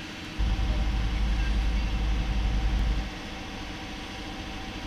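Sportfishing boat under way: its engine drones steadily under water rushing past the hull, with a loud low rumble from about half a second in until about three seconds.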